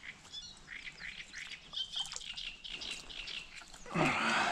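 Wild birds chirping and calling, many short high calls one after another. A louder, noisy sound comes in near the end.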